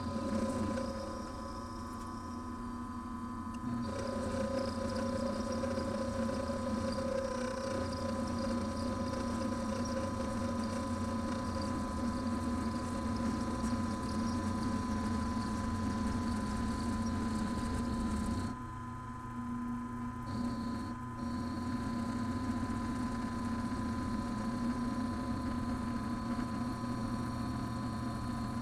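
Milling machine running steadily with its spindle turning while an end mill cuts a metal bar held in a vise: a constant motor hum under the cutting noise. The cutting gets louder about four seconds in and dips briefly about two-thirds of the way through before going on.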